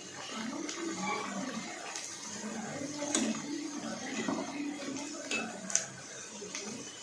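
Battered onion rings deep-frying in hot oil, a steady sizzle. A few sharp clicks sound over it, the loudest just before six seconds in.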